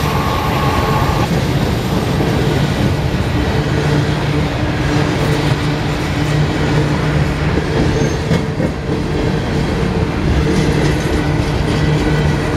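CSX phosphate train of open-top hopper cars rolling past close by: a steady rumble of steel wheels on the rails with a low hum.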